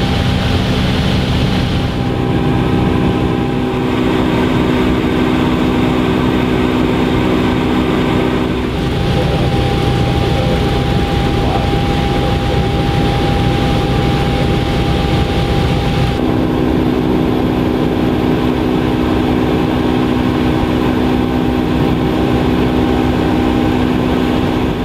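Helicopter engine and rotor noise heard inside the cabin: a loud, steady drone with a high whine, its tones shifting abruptly a few times.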